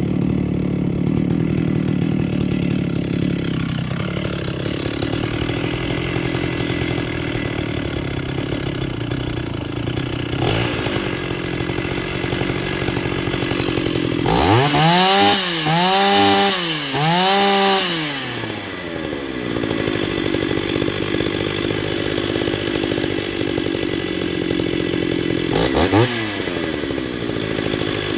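Small two-stroke chainsaw running under load in green hardwood. About halfway through the engine revs up and down three times in quick succession, and it revs up once more near the end. The saw is being tried in a cut after its high-speed mixture was adjusted.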